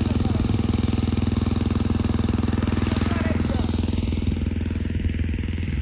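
Engine of a pump draining a pond, running steadily with a fast, even pulse.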